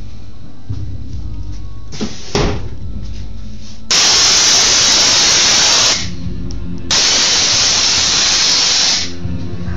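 Two loud bursts of hissing, each about two seconds long with a second's gap between them, starting and stopping abruptly, over a low background hum.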